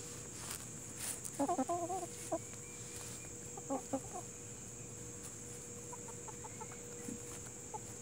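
Chickens clucking while foraging close by: a quick run of short clucks about a second and a half in, a second cluster near four seconds, then only a few faint ticks. A steady high hiss runs underneath.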